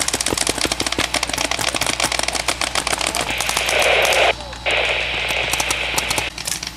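Paintball markers firing in rapid volleys, many shots a second, with the pops from several guns overlapping. About three seconds in, a loud hiss starts, breaks off briefly and runs for about three seconds over the shots.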